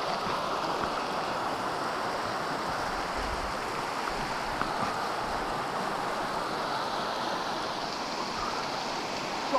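Mountain creek rushing over a rocky bed, a steady even rush of water.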